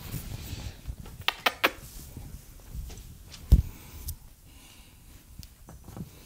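Scattered clicks and knocks, with one louder, deeper thump about three and a half seconds in.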